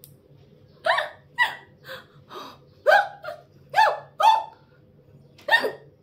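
A woman hiccupping repeatedly: about nine short, voiced hics, roughly two a second, some louder and some fainter, then a pause of about a second before a last one.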